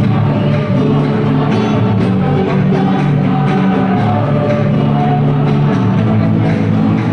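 A school choir singing a pop song with instrumental accompaniment, holding long sustained notes.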